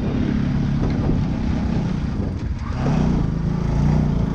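Motorcycle engine running as the bike is ridden over a rough, rocky dirt track, its note climbing about three seconds in, over a heavy low rumble of wind and bumping on the microphone.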